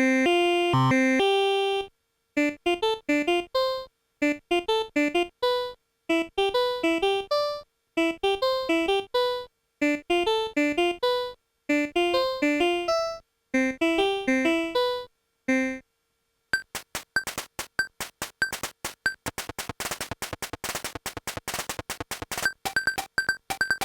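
Casio VL-Tone VL-5 polyphonic mini keyboard playing electronic keyboard tones: a few held notes, then a short note phrase repeated with brief silent gaps about every two seconds. About two-thirds of the way through it switches to a fast, dense stream of clicky pulses.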